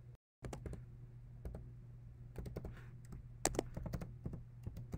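Typing on a computer keyboard: an email address keyed in as irregular clicking keystrokes, over a steady low electrical hum. The audio cuts out completely for a moment just after the start.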